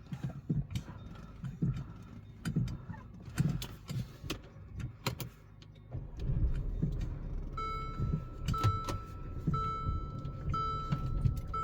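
Brake pedal of a 2016 Mercedes CLA 250 being pumped, a string of soft clunks and clicks, to bring the pushed-back caliper pistons out to the new pads. About six seconds in, a low steady rumble sets in, and from about eight seconds the car's warning chime beeps about once a second.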